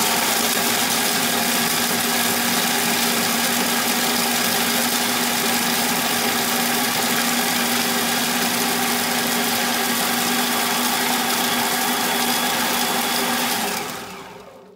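Moulinex food processor motor running steadily at full speed, its blade grinding a mix of nuts, dates and seeds, then winding down near the end as it is switched off.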